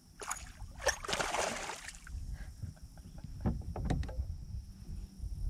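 Splashing water beside a kayak, one burst lasting about a second, typical of a hooked smallmouth bass thrashing at the surface as it is brought in. A few short knocks follow, over a low wind rumble.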